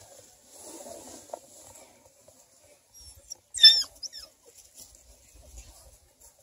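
A beagle puppy gives a short, high squeal a little over halfway through, then a fainter one just after. Before that there is soft rustling and gnawing as the puppy chews a plush toy in the grass.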